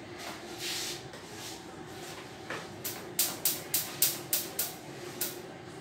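A short hiss near the start, then a quick run of about eight sharp taps, roughly three a second, over a steady low hum, as the welder works a stainless-steel tube joint by hand with the TIG arc off.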